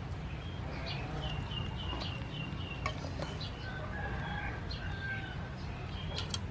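A rooster crowing with other birds calling. Near the end there is a sharp click of metal tongs on a wire grill rack.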